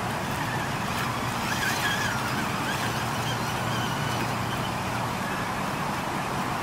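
Traxxas TRX-4 Sport RC rock crawler driving through a shallow rocky creek: the whine of its electric motor and gears, wavering in pitch with the throttle, over the splash and rush of water around its tires and the running stream.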